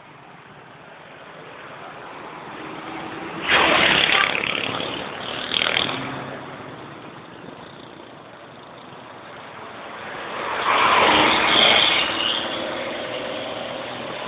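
Road traffic noise from a moving vehicle running alongside an intercity bus: engine, tyre and wind noise. It swells loud about three and a half seconds in, again briefly near six seconds, and once more around eleven seconds.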